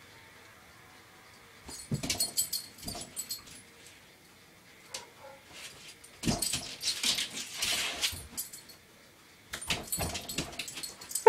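Dog's claws scratching and scrabbling against a wooden dresser and wall as it jumps up at a reflected light spot, in three busy bursts with short quiet gaps between.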